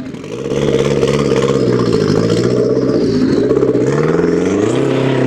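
Car engine revving hard, its pitch climbing, falling back and climbing again.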